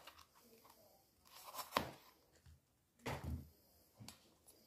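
Faint knocks of a chef's knife cutting red pepper on a cloth-backed chopping board: one sharp knock just before the middle, then a duller cluster of knocks about a second later.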